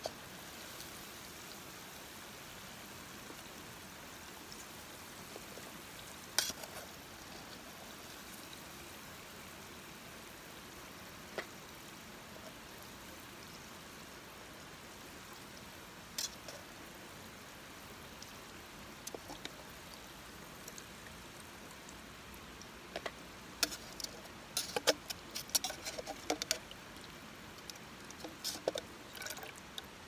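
Chicken deep-frying in oil in a camping pot, a steady sizzle. Metal tongs click and tap against the pot now and then, in a quick run of clinks in the last several seconds.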